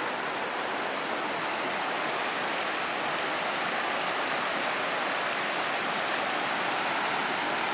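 The Virgin River running shallow over a rocky, cobbled bed in a narrow canyon: a steady rush of flowing water.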